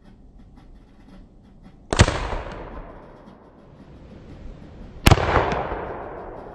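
Two gunshots from a .54 caliber Greene twist-action breech-loading rifle, about three seconds apart, each a sharp crack followed by a long fading echo.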